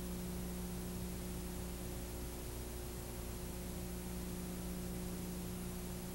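Steady hiss with a low mains hum underneath and nothing else: the noise floor of an analogue videotape recording.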